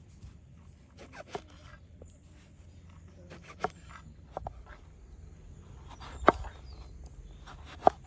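Large kitchen knife slicing through an eggplant and knocking on a wooden cutting board: about five sharp knocks, a second or two apart, the loudest two near the end.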